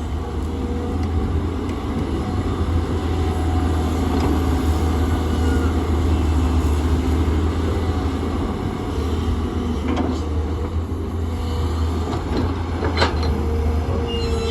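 Tata Hitachi excavator's diesel engine running steadily under load, with a couple of sharp knocks near the end.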